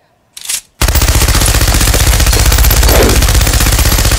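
Machine-gun sound effect: after a brief rasp, sustained rapid automatic fire starts just under a second in and keeps going.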